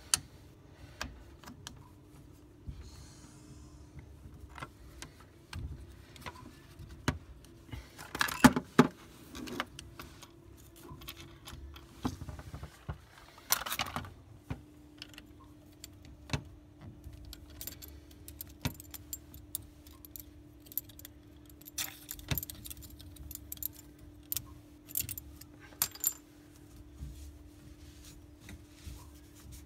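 Scattered clicks, taps and metallic clinks of tools and fittings being handled while a heating filter is refitted, loudest in two short clusters about a third of the way in and near the middle. A faint steady hum lies underneath, dropping out for a few seconds around the middle.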